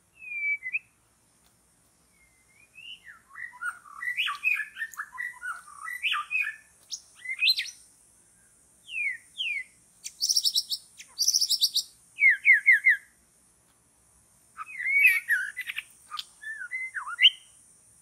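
White-rumped shama singing: rapid, varied whistled phrases and chattering notes delivered in bursts with short pauses between. There are two harsh rattling bursts near the middle.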